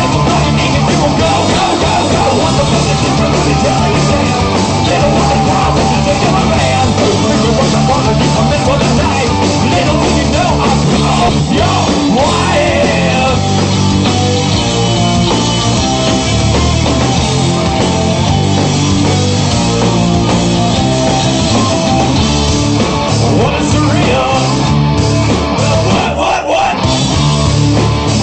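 A rock band playing an up-tempo, melodic hard rock song with a punk edge, loud and unbroken.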